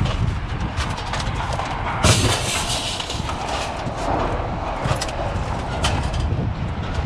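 Scrap metal being thrown off a truck onto a scrap pile: repeated clatters and knocks, with the loudest crash about two seconds in ringing on for a moment, over a steady low engine rumble.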